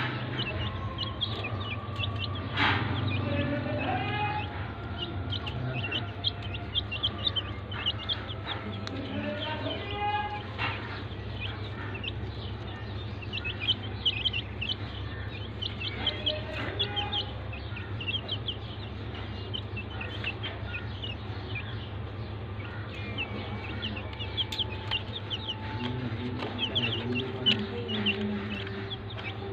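Young chickens peeping over and over in short high calls, with a few lower clucking calls now and then, over a steady low hum.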